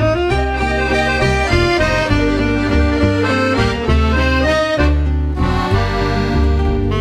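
Background music led by an accordion: a melody of held notes over a bass line that changes note about every second.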